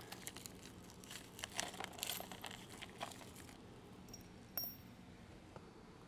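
Faint handling noise of a steel face plate being fitted against a square steel frame tube: light scrapes and taps, with one short ringing metal clink about four and a half seconds in.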